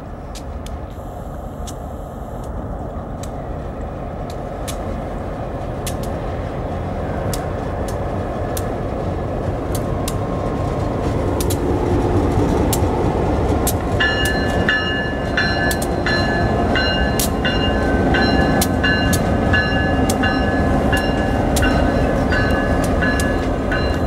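Two diesel-electric road-switcher locomotives running coupled together, their engines growing steadily louder as they approach and pass close by, with sharp clicks from the wheels on the rails. From a little past halfway, a bell rings steadily at about two strokes a second.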